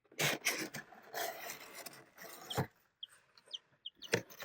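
Rustling and scraping of something being handled, with two-day-old olive egger chicks peeping: a handful of short, high chirps from about halfway through.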